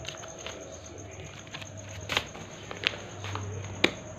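Kittens' paws tapping and scuffing on large sheets of paper as they play, with three sharper clicks in the second half.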